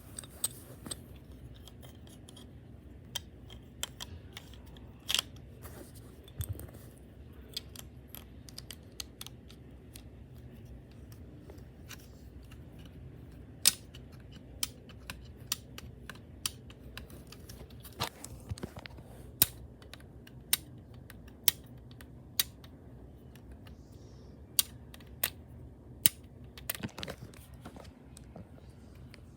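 Scattered sharp clicks and taps of hard plastic Lego pieces being handled, irregular and of varying loudness.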